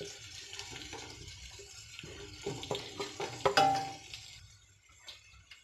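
Sliced onions and green chillies hitting hot oil in a steel pan and sizzling, while a spoon and wooden chopping board knock against the pan rim. The loudest knock, with a brief metallic ring, comes about three and a half seconds in, and the sizzling fades soon after.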